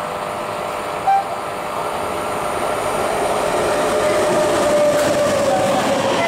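Express train hauled by a WAP-7 electric locomotive approaching at speed and running through a station, its rumble and rush growing steadily louder as it nears and the coaches pass. A steady tone falls slightly in pitch over the last couple of seconds, and there is a brief sharp sound about a second in.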